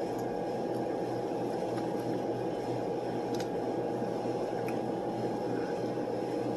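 Steady electrical and ventilation hum of the room, with a constant mid-pitched tone and a low drone, and a couple of faint clicks about halfway through.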